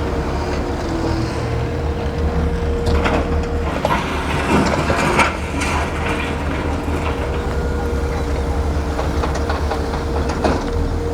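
A large diesel engine running steadily with a constant whine, with clanks and rattles about halfway through.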